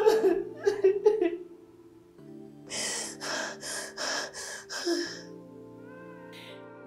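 A woman sobbing: loud, choked wails in the first second or so, then five sharp breathy gasps about two a second, around three to five seconds in. Soft, sad background music plays steadily underneath.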